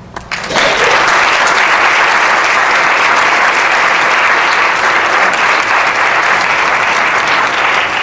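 Audience applauding, starting about half a second in and keeping up a steady clatter of many hands.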